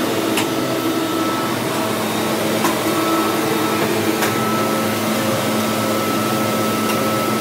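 Steady running noise of workshop machinery with a thin constant whine, broken by a few sharp clicks about a second or two apart.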